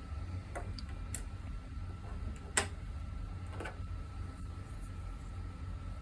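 A few small sharp clicks and taps from handling a Cat 6 Ethernet cable and its plastic connector, four in all with the loudest in the middle, over a low steady hum.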